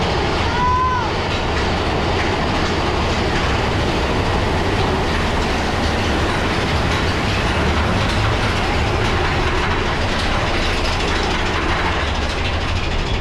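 Roller coaster train running along its track: a steady, unbroken rumble and rattle, heavy in the low end.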